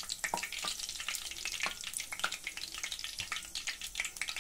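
Hot cooking oil sizzling and crackling with many quick pops as deep-fried green chillies and curry leaves are held in a wire strainer just above it.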